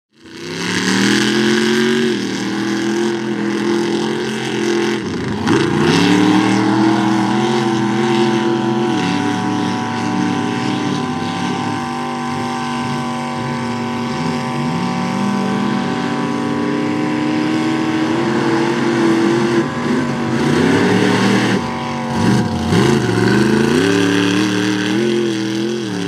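Mud bog truck engine running hard at high revs, the pitch dipping and climbing back about five seconds in and again around twenty-two seconds.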